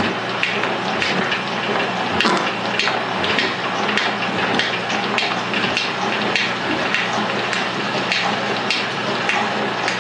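Rhodes metal shaper taking a cut in metal: a steady run of machine and cutting noise with a low hum, and a sharp click about every 0.6 s as the ram strokes back and forth.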